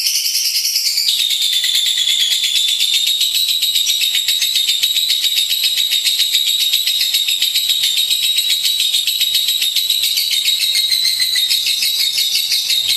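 Lovebird singing a continuous rapid, high-pitched chattering trill without a break, its pitch dropping slightly about a second in.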